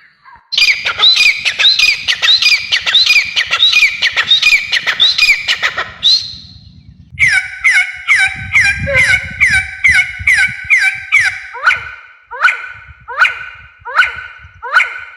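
A bird calling over and over, about two short calls a second. The calls stop briefly about six seconds in, then a second, lower-pitched run of calls follows.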